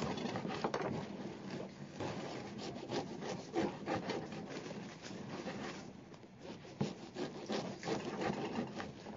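A knife sawing through a crusty loaf of bread on a wooden table, in repeated rasping strokes.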